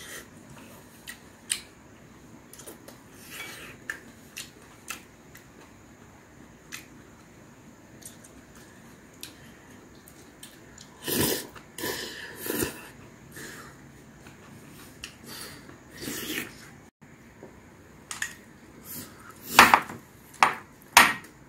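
Eating beef seaweed soup: chopsticks and a metal-free wooden spoon clicking against a ceramic bowl, with slurping of seaweed strands about halfway through. The loudest sounds come near the end, as the spoon scrapes and stirs rice into the soup in the bowl.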